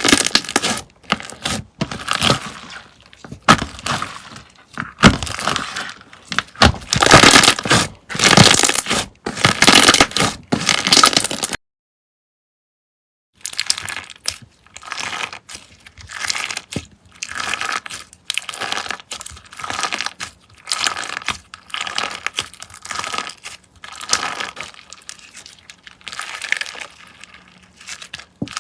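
Slime being squeezed and pressed by hand, giving a run of crackling, crunching squishes. The sound cuts out completely for nearly two seconds near the middle, then a quieter run of the same crackly squishing resumes.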